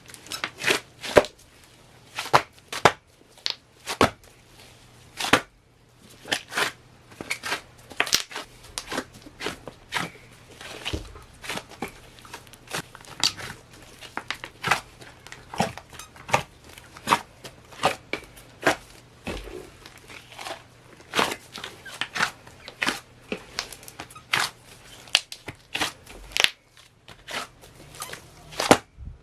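A large batch of slime kneaded by hand, giving a run of sharp clicks and pops of trapped air, a few each second at an irregular pace.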